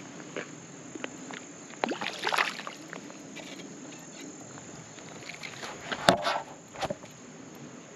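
Hooked smallmouth bass splashing and thrashing at the water's surface as it is reeled in, in irregular splashes, the loudest about six seconds in. A steady high chirring of crickets runs under it.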